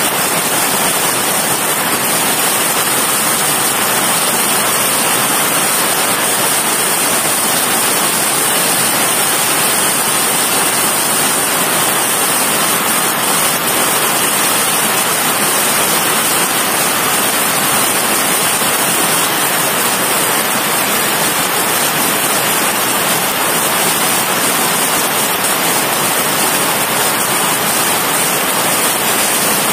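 Heavy rain pouring down steadily on roofs and pavement, a loud, even hiss with no breaks.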